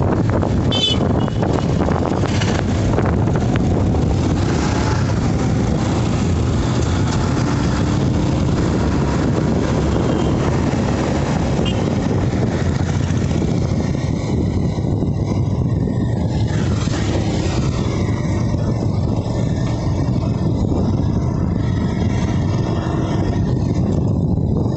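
Steady engine and road noise from riding a motorbike through light traffic, a continuous rumble with no sharp events.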